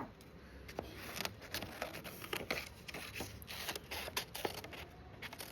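Paper and cardboard being handled: soft rustling with many scattered light clicks and scrapes.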